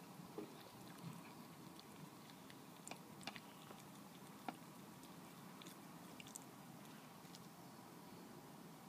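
Red fox eating from its food bowl: faint, irregular crunches and clicks of biting and chewing.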